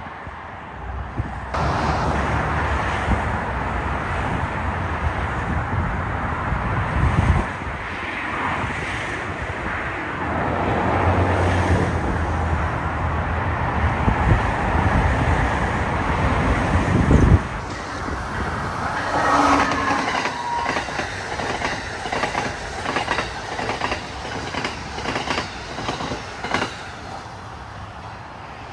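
Electric passenger trains passing along the tracks. First comes a loud, steady rumble and rail roar that cuts off suddenly about two-thirds of the way through. Then comes a quieter clickety-clack of wheels over rail joints.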